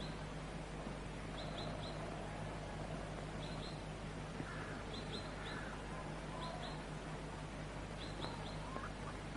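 Small birds chirping in short high twos and threes every second or so, with a few fainter whistled calls, over the steady hiss and low hum of an old film soundtrack.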